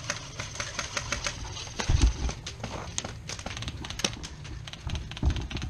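Airsoft guns firing around the field: a scatter of sharp clicks and pops, several a second, at no steady rhythm. Two low thumps, about two seconds in and near the end, come from the gun-mounted camera being knocked or handled.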